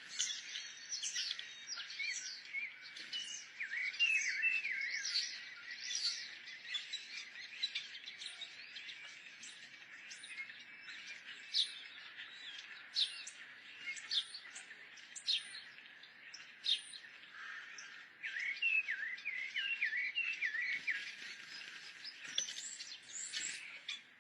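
Small birds chirping: a busy run of short, sharp calls, with two stretches of quicker, twittering phrases, one a few seconds in and one near the end.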